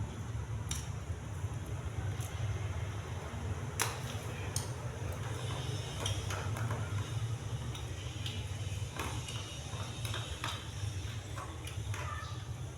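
Eating sounds: scattered short clicks of chewing and utensils over a steady low hum.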